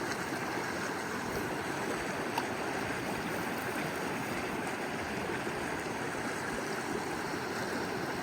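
Mountain stream flowing steadily, a constant rush of water.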